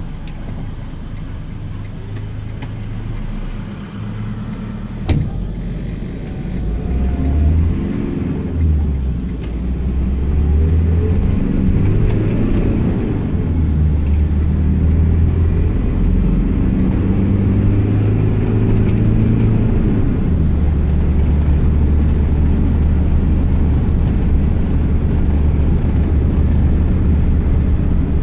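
Iveco Daily minibus's 3.0-litre diesel engine heard from inside the cabin, accelerating hard with the pitch rising and dropping through several gear changes, then running at a steady pitch from about two-thirds of the way in. A sharp click about five seconds in.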